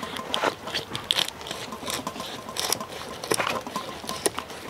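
Filleting knife cutting along the backbone of a small yellowtail (horse mackerel) on a plastic cutting board: a run of short, irregular scraping clicks as the blade passes over the bones.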